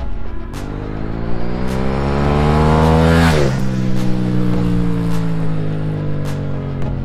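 Husqvarna 901 Norden's 889 cc parallel-twin engine as the motorcycle accelerates past: the engine note rises steadily for about three seconds, drops sharply as it passes, then fades lower. Music with a steady beat plays underneath.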